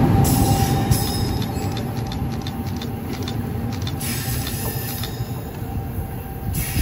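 New Jersey Transit electric locomotive-hauled train moving past the platform and pulling away. Its low rumble is loudest at first, fades over the first couple of seconds, then settles into a quieter steady rumble.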